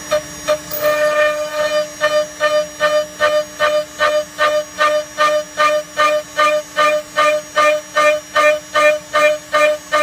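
ShopBot CNC router's spindle at 18,000 RPM with a 4 mm two-flute end mill, dry-milling 5 mm low-carbon steel on a trochoidal toolpath: a steady spindle tone under a pitched cutting buzz that pulses about three times a second, once for each loop where the cutter bites into the steel. About a second in, the pulses come faster and louder.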